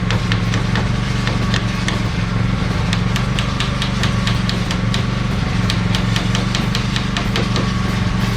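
Belt sander running steadily, with many scattered sharp ticks over its hum.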